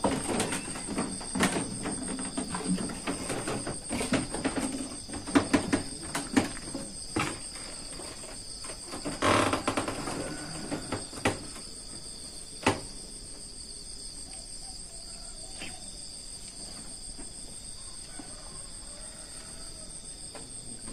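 A steady, high-pitched chorus of night insects, crickets, running throughout. Over the first half, scattered knocks and footsteps on the platform boards come and go, with a louder cluster near the middle and one sharp knock a little later, after which only the insect drone remains.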